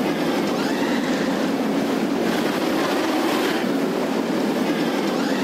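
Steel roller coaster train running along its track at speed, a steady loud rumble of wheels on rail.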